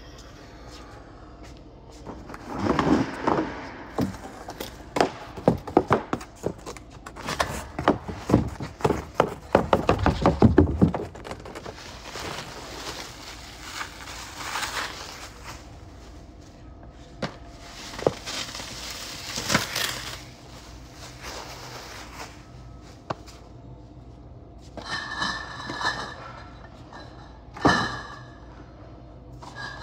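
Clear plastic sheeting crackling and rustling as it is handled, mixed with sharp knocks of cardboard beer cases. Near the end come three short squeaks as a case is pushed into place on the stack.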